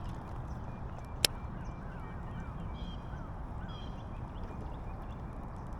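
Faint bird calls, a handful of short falling chirps, over a steady low rumble, with one sharp click about a second in.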